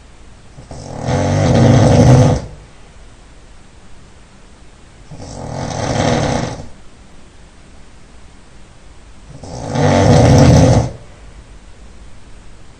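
A man snoring loudly: three snores about four seconds apart, each lasting about a second and a half, with quieter breathing between them.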